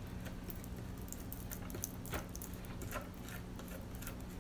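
Faint scrapes and a few light ticks of a wooden stir stick spreading a wet sand-and-resin mix over plastic wrap on a platter, over a steady low hum.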